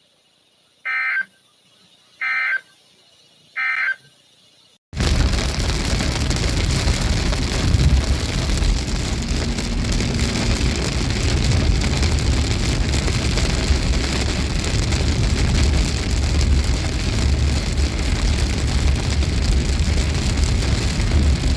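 Three short end-of-message data bursts of a NOAA Weather Radio / EAS SAME alert signal, raspy digital chirps about a second and a half apart, marking the end of the warning. About five seconds in, a loud steady rushing noise with a deep rumble abruptly takes over.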